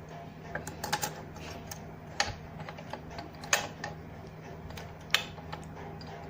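Small metal sewing-machine parts clicking and knocking as they are fitted together by hand: a quick cluster of clicks about a second in, then single sharper clicks at about two, three and a half, and five seconds.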